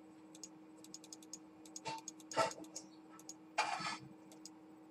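Faint scattered clicks, with two short breath-like hisses about two and a half and three and a half seconds in, over a steady low hum.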